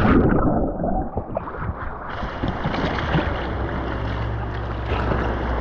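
Churning river whitewater heard through an action camera plunged underwater as the open canoe capsizes in a rapid: a dull, muffled rush of water and bubbles for about two seconds, then a brighter, steady rush of water.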